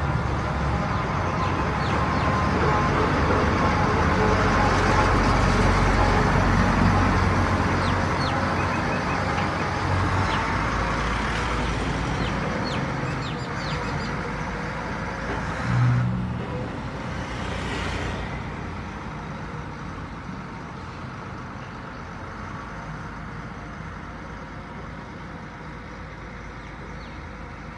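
Kular 995 combine harvesters' diesel engines running as they drive along the road. The sound is loud at first and fades away over the second half, with a short loud burst about halfway through.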